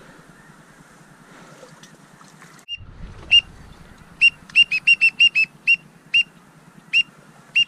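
A duck-hunting whistle call blown in short, clean peeps: a single note, then a quick run of five or six, then single peeps spaced about half a second to a second apart, imitating a whistling duck such as a teal or pintail to draw birds in.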